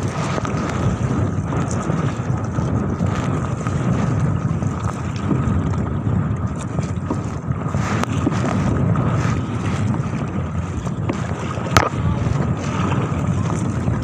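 Strong wind buffeting the microphone, with water splashing around an inflatable kayak as it is paddled through choppy waves. A single sharp knock late on.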